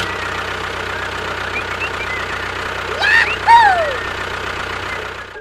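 A small engine or motor running steadily, with a low rhythmic hum, broken about three seconds in by two loud falling-pitch swoops.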